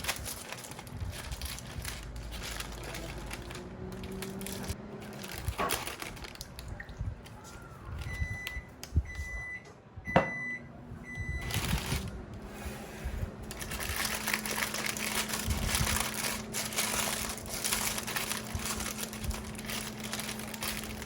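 Four short, identical electronic beeps from a kitchen appliance's control panel as its buttons are pressed, between about eight and eleven seconds in, with a sharp click among them. Rustling handling noise fills the rest.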